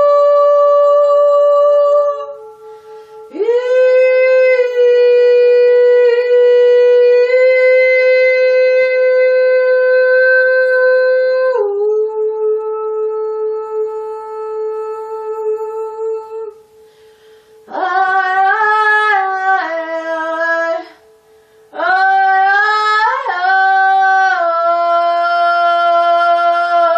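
A woman singing wordless, long sustained tones, each held for several seconds with short breaths between. The notes start with an upward slide and step down in pitch, and shorter sliding phrases come in the second half. A faint steady ringing tone carries on underneath through the pauses.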